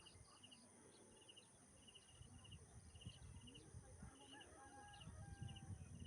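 Faint rural morning ambience: a high chirp repeating about twice a second, a few soft bird whistles, and a low rumble of wind.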